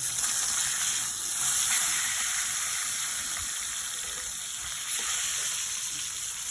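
New York strip steak frying in a hot cast iron skillet: a steady sizzle.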